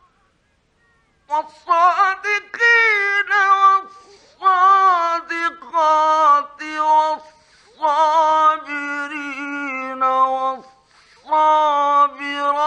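Qur'an recitation: a man's solo voice chanting in a melodic style, with long held, ornamented notes in phrases separated by short pauses. It begins about a second in.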